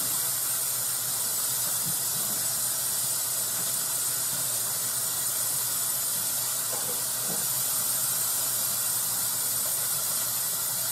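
Kitchen sink tap running in a steady hiss while hands are washed under it.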